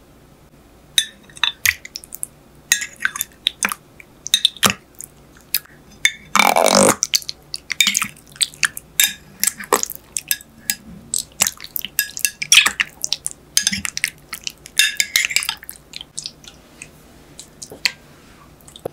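Metal teaspoon breaking up set coffee jelly in a glass container: irregular clinks and scrapes of the spoon against the glass with wet squelches of the jelly, starting about a second in, with one longer wet burst about six and a half seconds in.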